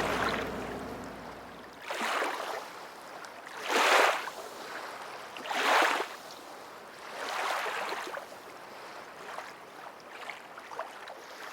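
Water washing in repeated swells, one about every two seconds, the later ones weaker.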